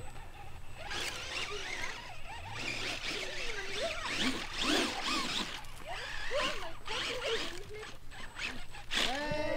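Electric motor and gears of an RC off-road crawler whining, rising and falling in pitch as the throttle is worked and the tyres scrabble for grip on loose gravel. Just after nine seconds a voice calls out, falling in pitch.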